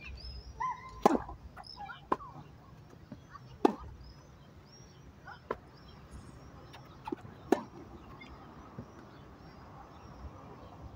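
Tennis rally: a ball struck by rackets and bouncing on a hard court, as sharp pops a second or two apart, the loudest about a second in and again past seven seconds. Birds chirp faintly in the background.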